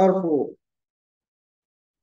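A man's voice finishes a phrase in the first half second, then dead silence.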